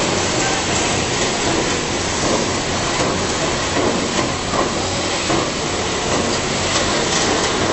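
Screw conveyor running, its auger carrying sand and cement up the tube: a steady motor hum under a dense, even rattle.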